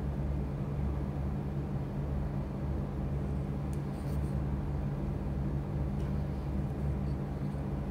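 Steady low background hum, with a few faint clicks about halfway through and again later.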